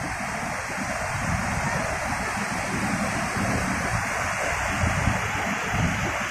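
Ocean surf breaking and washing up a beach: a steady rushing wash of waves, with some wind rumble on the microphone.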